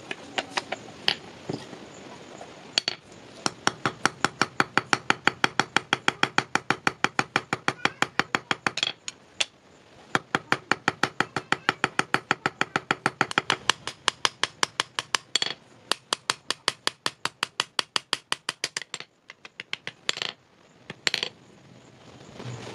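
Hammer peening a metal pin on an anvil to rivet wooden handle scales to a knife tang: rapid, even blows about five a second in long runs. There is a short break about nine seconds in, and two separate blows near the end.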